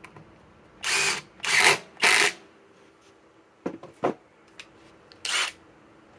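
Cordless impact drivers running in short bursts of about half a second, driving structural timber screws into a wooden beam: three bursts in quick succession about a second in, then one more near the end. A few light clicks come between the bursts.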